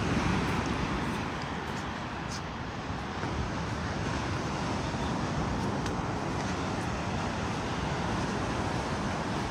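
Steady rush of small waves breaking on a sandy beach, with some wind on the microphone.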